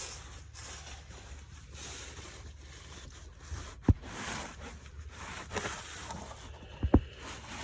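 Rustling and handling noise from someone moving under a vehicle with a hand-held camera, with two sharp knocks, the first about four seconds in and a louder one three seconds later.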